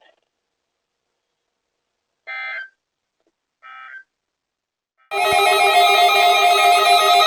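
Two short electronic data-tone bursts about a second and a half apart from a NOAA Weather Radio receiver, the second quieter: the end-of-message signal closing an Emergency Alert System weekly test. About five seconds in, guitar music starts.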